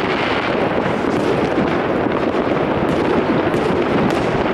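Many fireworks going off at once, a steady dense rumble of overlapping bangs with a few sharp crackles on top.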